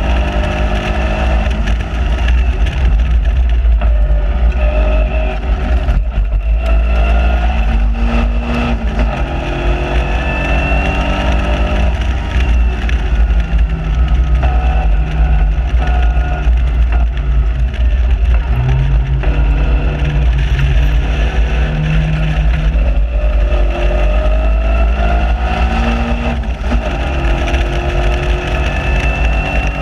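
Onboard sound of a Caterham Seven's four-cylinder engine at speed on track. It rises in pitch under acceleration and drops back at the gear changes and lifts, several times over. A heavy low rumble of wind buffeting the microphone in the open cockpit runs underneath.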